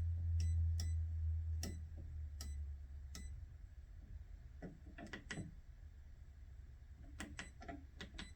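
Irregular clicks of buttons being pressed on a handheld oscilloscope, over a low hum that fades away over the first three seconds.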